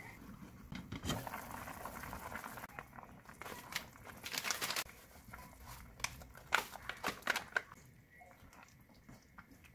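A pot of diced vegetables bubbling at the boil, then crinkling in the middle as black bean (jjajang) powder goes in, and several sharp knocks of a wooden spatula against the pan as the sauce is stirred.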